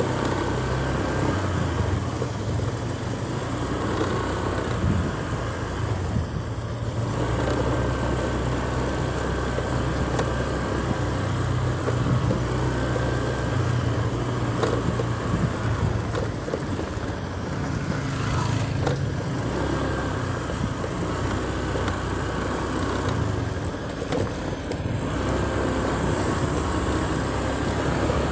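A road vehicle driving, with steady low engine and road rumble.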